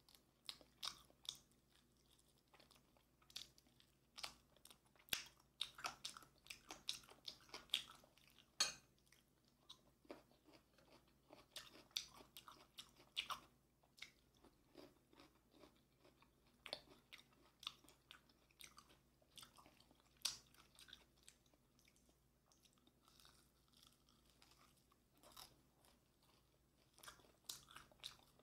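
Close-up chewing and biting of crispy Korean fried chicken, with irregular crisp crunches that come thickest in the first half and thin out later.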